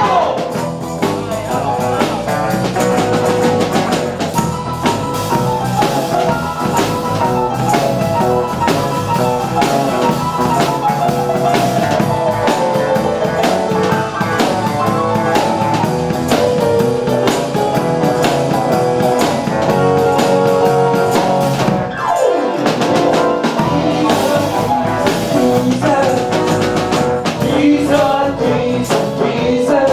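Live band playing an up-tempo rock-and-roll number on drum kit, guitar, bass and keyboards, with a steady beat. The band stops briefly about two-thirds of the way through, then comes back in.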